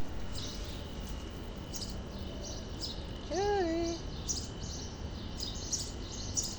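A kitten gives one short meow about three seconds in, rising in pitch and then holding level. Birds chirp repeatedly in the background.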